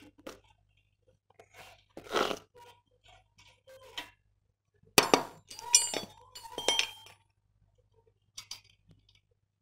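Metal hand tools clinking against small nuts and terminals on a generator's alternator as the carbon-brush wires are fastened back on. Separate clinks and knocks, the loudest about five to seven seconds in, some with a brief metallic ring.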